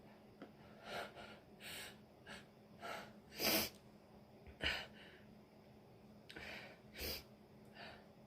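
A woman sneezing repeatedly, with sharp gasping in-breaths between the sneezes; the loudest sneeze comes about three and a half seconds in. The uploader puts the sneezing down to a dust allergy or a lingering cold.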